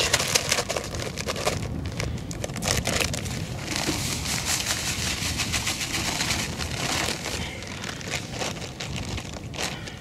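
Dry groundbait pouring from its packet into a plastic bucket, the packet crinkling and rustling as it is shaken out and handled. Wind rumbles on the microphone underneath.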